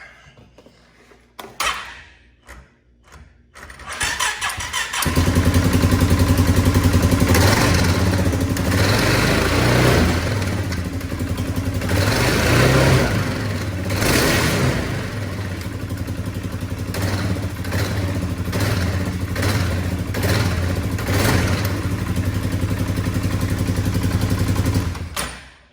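Polaris Sportsman 570 ATV single-cylinder engine cranked and started about four seconds in, then running with its CVT clutch cover off. It makes the clutch noise being hunted down, and is shut off just before the end.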